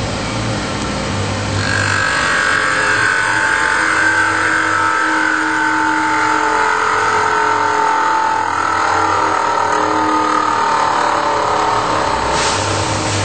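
A CNC router spindle and a small Sherline lathe cutting a turning wooden dowel: a steady machine whine over a low hum. The whine gets louder about a second and a half in and slowly falls in pitch.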